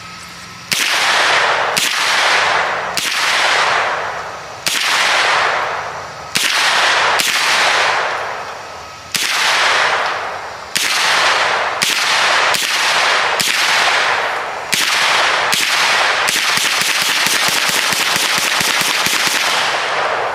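Gunfire: about a dozen single shots one to two seconds apart, each with a long fading tail, then a fast string of shots over the last four seconds or so.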